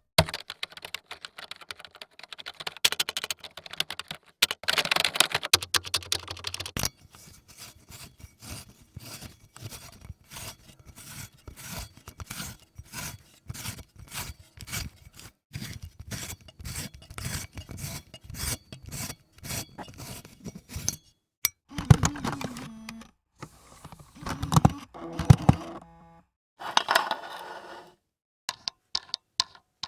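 A run of short mechanical effects: dense scraping and clicking for the first several seconds, then a long string of evenly spaced sharp clicks, about three a second. Near the end come a few brief separate sounds with a low hum in them, then quick ticks.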